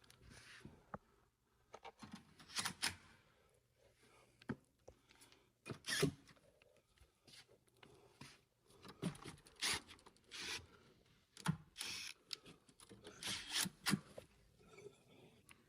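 Irregular clicks, scrapes and rustles of metal hardware being handled and fitted, as the cover goes onto a rim panic device's push bar.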